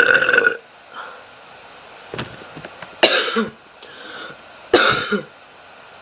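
A man forcing out burps: a pitched burp at the start, then two short, harsher burps about three and five seconds in.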